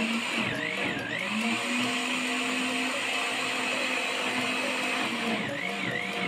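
Electric blender running, puréeing boiled sago pieces with coconut water and coconut cream. The motor hum is steady but dips in pitch and picks up again about half a second in, and again a few times near the end.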